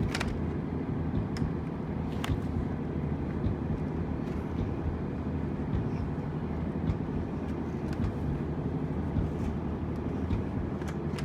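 A steady low mechanical drone, like a running motor, with a few light clicks in the first couple of seconds.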